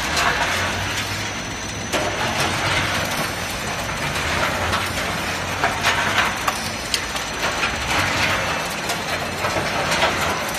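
Electronic-component fire-dismantling machine running: a steady mechanical din with a continuous clatter of loose components and circuit-board scrap, dotted with irregular sharp clicks, over a low hum.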